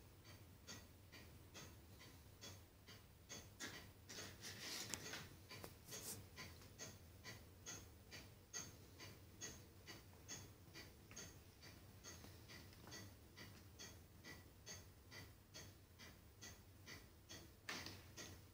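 Faint, regular ticking, about three ticks a second, with a brief scuffling rustle about four to six seconds in and another shortly before the end.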